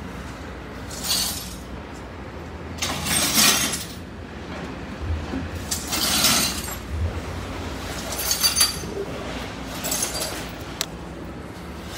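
Broken glass shards being pushed and scraped across a truck's cargo floor, clinking and grating in about five short bursts a couple of seconds apart.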